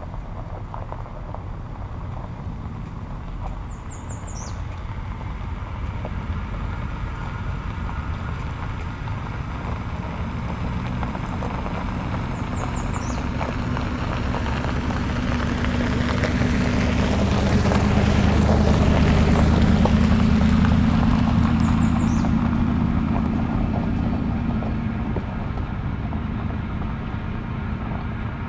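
A truck approaching and passing on a gravel road: engine and tyre crunch build slowly to a peak about two-thirds of the way through, then fade as it moves away.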